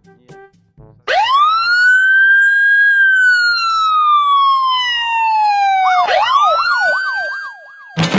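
Police siren sound effect. The wail rises sharply about a second in, holds, then slides slowly down. About six seconds in it switches to a fast yelp, sweeping up and down about three times a second over a second rising wail. A loud burst of a new sound comes right at the end.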